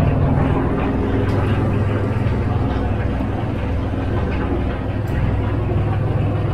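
An enclosed lifeboat's diesel engine running steadily, heard from inside the cabin as a loud, even low drone.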